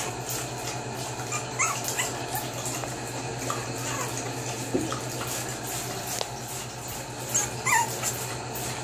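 Young boxer puppies whimpering and yipping in short, high squeaks, scattered through, with a louder cluster near the end.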